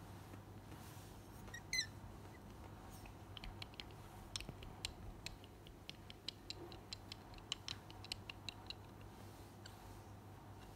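Young kittens moving about on a cloth-covered surface: an irregular run of faint, light clicks, several a second, in the middle. There is one brief high squeak about two seconds in, over a low steady room hum.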